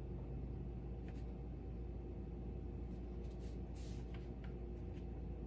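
Quiet room tone: a steady low hum with a few faint ticks and rustles scattered through it.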